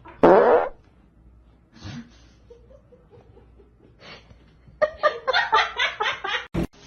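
Person laughing in quick repeated bursts near the end, after a short, loud voiced cry about a quarter second in.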